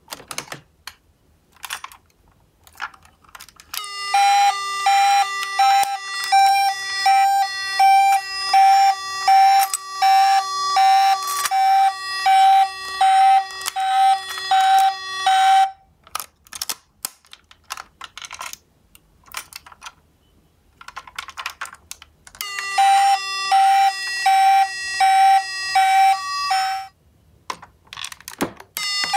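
Toy ambulance's battery-powered electronic siren sounding a buzzy two-tone wail that pulses about twice a second, in two spells: a long one starting about four seconds in and a shorter one later. Clicks and clatter of small die-cast toy cars being handled come in between.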